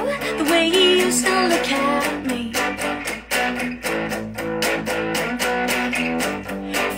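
SG-style electric guitar strummed in a steady rhythm as a song's accompaniment, with a sung line over it in the first couple of seconds before the guitar carries on alone.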